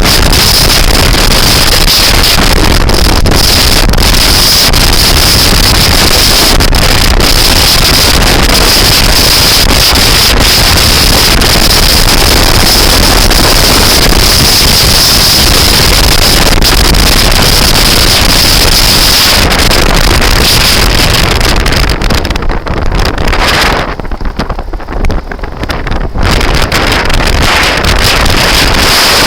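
Heavy wind buffeting the microphone of a camera riding on a moving scooter, a loud steady rush that nearly drowns everything else. It drops away for a few seconds about three-quarters of the way through, then comes back.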